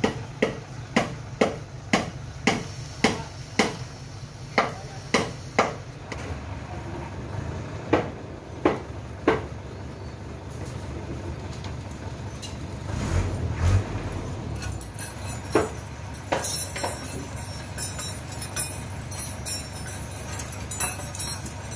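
A truck-mounted crane's engine runs steadily under a string of sharp knocks, roughly two a second, for about the first nine seconds. A few more knocks come later, then a light, high jingling.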